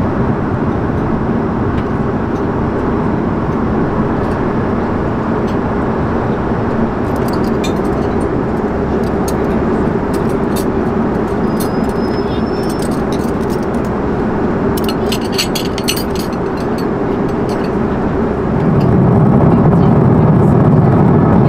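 Steady rushing cabin noise of a four-engined Airbus A340-300 in cruise, with scattered light clicks through the middle. Near the end the noise becomes louder and deeper.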